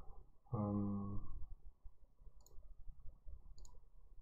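A short low hummed 'mm' in a man's voice, then two faint computer-mouse clicks about a second apart.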